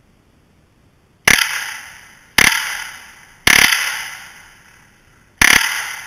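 Four rifle shots fired in quick succession: three about a second apart, then a fourth after a pause of about two seconds. Each is a sharp crack that trails off over most of a second.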